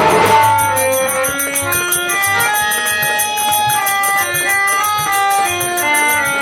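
Nautanki folk music: a solo melody of held, stepping notes on a reed instrument, with the drums dropping out until the end.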